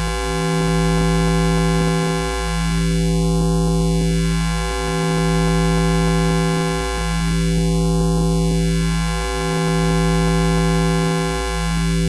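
High-voltage electrical hum sound effect: a steady buzzing drone with many overtones. A slow sweep runs up and down through its tone about every four and a half seconds, and the loudness swells gently about every two seconds.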